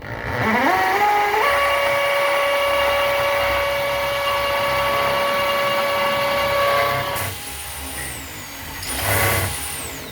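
Power drill with a masonry bit boring through a wooden board into brick. The motor whine climbs in steps as it speeds up, runs steady for about six seconds, eases off, then gives a short second burst near the end.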